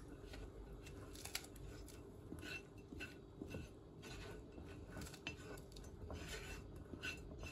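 Quiet, scattered clinks and scrapes of a kitchen utensil against cookware as the fried grain filling is moved into a pot of water coming to the boil.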